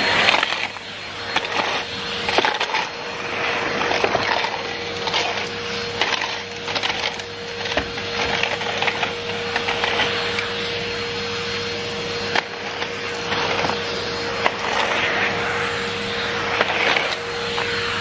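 Numatic Henry International vacuum cleaner running with a steady motor whine while its floor tool is pushed over concrete paving slabs, with many small crackles and clicks as grit is picked up.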